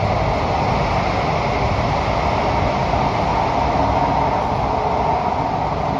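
Cabin noise of a Kawasaki–CRRC Sifang CT251 metro train running in a tunnel: a steady, loud rush of wheels on rail and air, with a faint steady hum.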